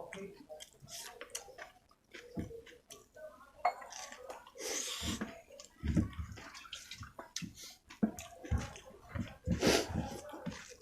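Close-up wet eating sounds: chewing and lip smacking on rice with spicy chicken curry and gravy, full of small clicks. There are two longer, wet, hissing stretches, one about halfway through and one near the end.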